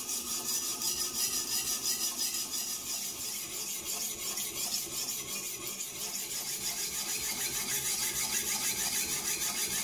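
Coarse 80-grit Venev diamond stone rasping along a stainless steel knife blade in quick, even back-and-forth strokes on a guided TSProf K03 sharpening system, grinding a new edge.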